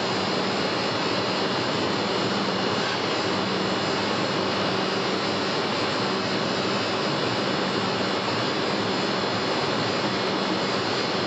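Steady, unbroken industrial machinery noise, a continuous roar with a faint low hum and no distinct knocks or strikes.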